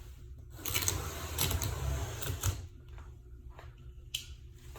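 A large cardboard shipping box being opened by hand: scraping and rustling with a run of sharp clicks over the first couple of seconds, then quieter scattered clicks and one short scrape near the end.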